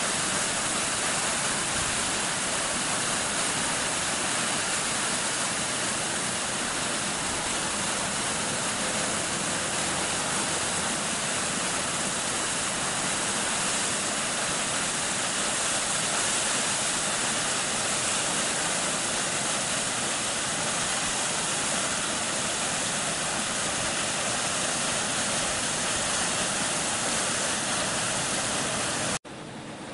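Steady rush of water falling down an ice-covered waterfall. It cuts off suddenly near the end, leaving a quieter rushing sound.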